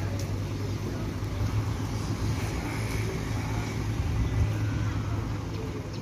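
A heavy vehicle's engine idling with a steady low hum.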